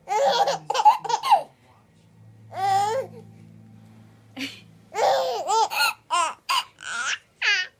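A baby laughing in repeated bursts: one at the start, another around three seconds in, and a run of quick laughs from about five seconds in to near the end. A faint low, steady buzz sounds underneath from about two to five seconds in.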